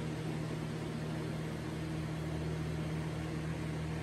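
Steady low background hum with a faint even hiss, with no distinct knocks or clicks.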